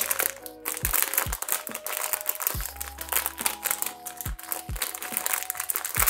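Shiny foil blind-box bag crinkling and crackling as it is pulled open by hand, over background music with a steady beat and deep drum hits.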